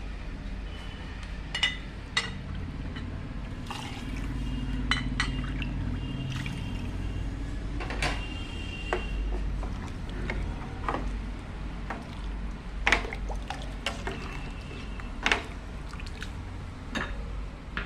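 Water poured bowl after bowl into a pot of soaked rice, with a steady rush of liquid and several sharp clinks of the bowl against the pot.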